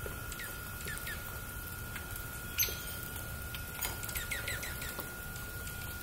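Small songbirds giving short, high chip notes, a few scattered at first and then a quick run of about five past the middle, with one sharper, louder call a little under halfway. A steady faint high whine runs underneath.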